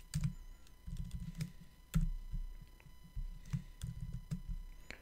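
Typing on a computer keyboard: irregular runs of keystrokes with short pauses, with one louder key press about two seconds in.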